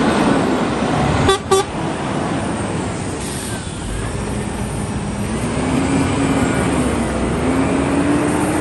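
Scania R480 lorry's diesel engine pulling away, with two short horn toots about a second and a half in. The engine note rises steadily through the second half as the truck picks up speed.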